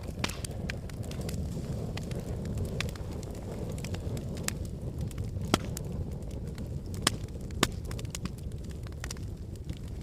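Wood fire crackling in a fireplace: a steady low rumble of flames with scattered small pops and ticks, and a few sharper pops around the middle and just after seven seconds in.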